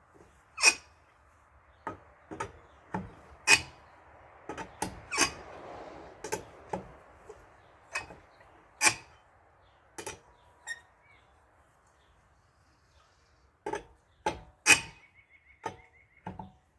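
Lug wrench bar clinking and clanking against the wheel's lug nuts as they are tightened down one after another: sharp, irregular metal strikes about once a second, with a pause of a couple of seconds past the middle.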